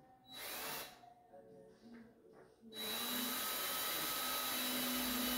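A power tool with a small motor. It runs briefly about half a second in, then starts again near three seconds in and keeps running steadily with a thin whine.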